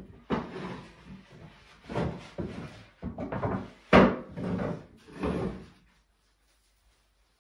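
18 mm birch plywood panels knocking and scraping against each other as they are slotted together, a series of wooden knocks with the sharpest and loudest about four seconds in.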